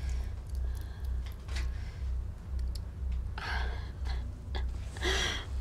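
Muffled bass beat of music, about two deep thumps a second. Two short breathy sounds come about halfway through and near the end.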